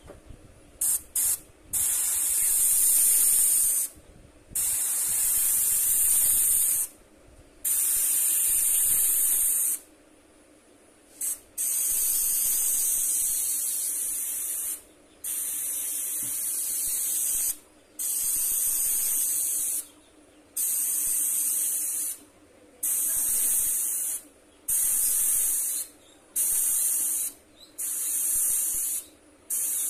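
Airbrush spraying paint, a high hiss that starts and stops in repeated bursts as the trigger is pressed and released; the early bursts last a few seconds, and near the end they shorten to about a second each.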